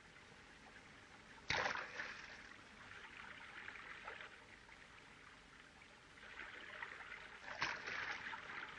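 Two sharp gunshot cracks about six seconds apart, each with a short echoing tail, over a steady hiss of running creek water and old film soundtrack noise.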